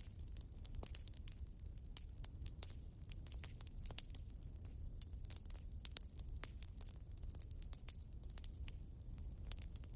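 Logs burning in a fireplace, crackling: frequent, irregular sharp snaps and pops over a steady low noise from the fire.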